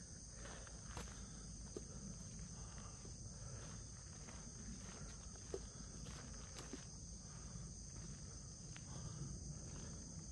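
A steady, high-pitched insect chorus, with low wind rumble and a few faint footsteps on stone paving.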